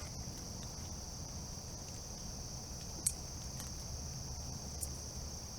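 Steady high-pitched insect chorus, crickets or katydids trilling without a break, with a light click about three seconds in.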